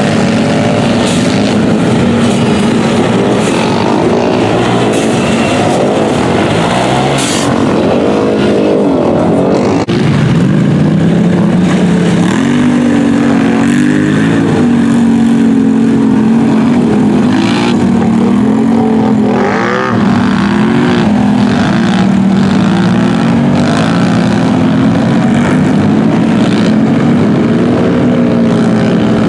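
ATV and side-by-side engines revving hard while churning through deep mud, the engine pitch rising and falling over and over as the throttle is worked. The sound jumps to a different machine about a third of the way in.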